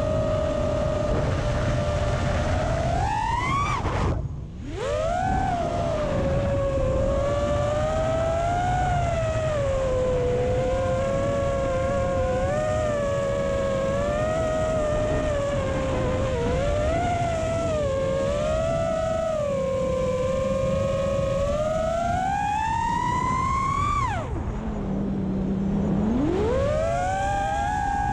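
FPV drone's T-Motor Velox 1950 kV brushless motors on 6S, spinning Ethix P3 props: a whine that rises and falls in pitch with the throttle. The throttle is chopped about four seconds in and again near the end, the pitch diving before it climbs back. A low wind rumble on the onboard camera's microphone lies underneath.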